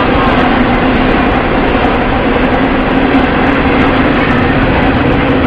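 Freight train's loaded container cars rolling past: a steady, loud noise of steel wheels on rail, with a low steady tone running through it.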